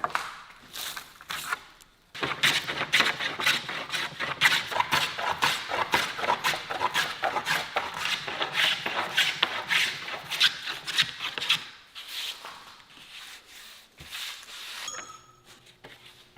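Wood being rubbed or scraped by hand in quick, even strokes, several a second. The strokes die away near the end.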